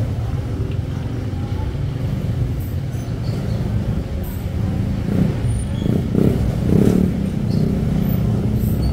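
Steady low rumble of a motor vehicle engine running nearby, swelling a little louder about five to seven seconds in.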